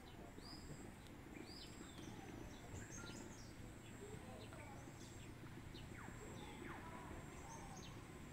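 Faint outdoor ambience of small birds chirping, with many short repeated calls, some sweeping downward, over a steady high insect-like whine.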